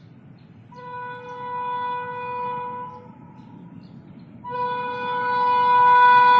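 WAP-7 electric locomotive's air horn sounding twice: a blast of about two seconds, then a second, louder blast starting about four seconds in and still going at the end, over a low steady rumble.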